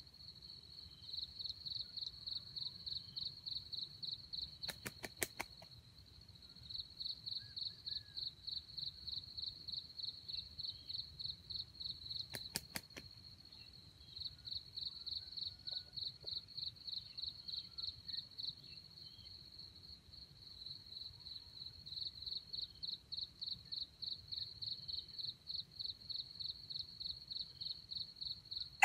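An insect chirping in a fast even pulse of one high note, about four to five pulses a second, in runs of several seconds broken by short pauses. Two brief clusters of quick faint clicks come in about five and thirteen seconds in.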